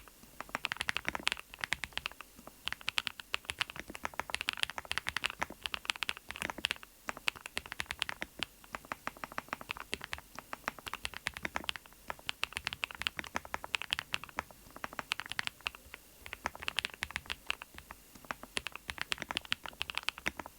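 Typing on a NuPhy Node75 keyboard: quick runs of key clicks and clacks, several keystrokes a second, broken by short pauses.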